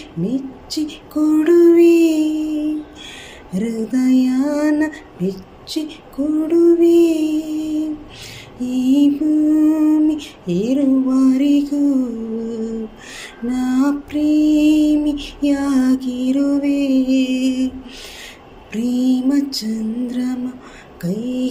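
A woman singing a slow, melodic song solo, holding long notes that glide into pitch, in phrases with short breaths between.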